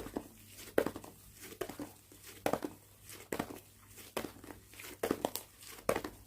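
Slime being squeezed and stretched by hand, giving irregular sharp pops and crackles about twice a second.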